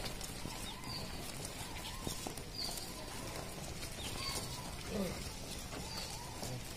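Footsteps of a group walking slowly on a street, with a bird repeating a short, high, falling call about every second and a half, four times.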